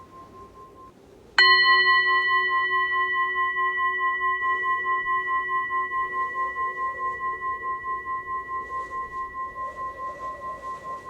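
A struck metal bowl or bell, hit once about a second in, ringing on with several clear overtones and a slow pulsing wobble as it gradually fades.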